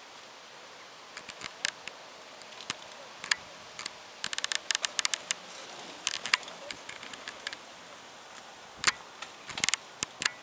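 Mountain bike rattling as it is ridden over rough ground: irregular sharp clicks and clatters from the drivetrain and frame, some in quick clusters, over a faint steady hiss.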